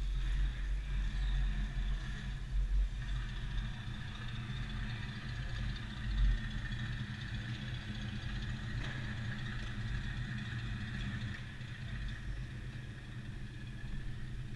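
RiMO electric go-karts running at low speed: a steady motor hum with a faint high whine.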